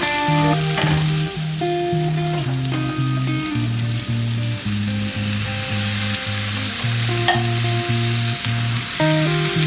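Diced vegetables sizzling steadily in a stainless frying pan on a gas hob, under background music of plucked notes over a stepping bass line.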